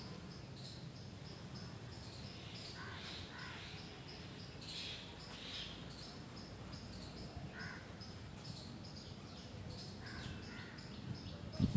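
Woodland birds calling, with many short high chirps and a few lower, harsher calls scattered through. A single loud low bump on the microphone comes just before the end.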